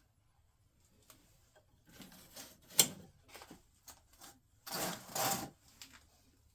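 Small objects being handled and rummaged through: a sharp click about three seconds in, a few light knocks, then a rustling scrape lasting about a second.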